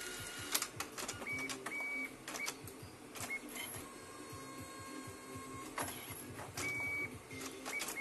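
Evolis Zenius card printer running as it prints PVC cards, its motors giving short high whines over a steady low hum, with scattered light clicks.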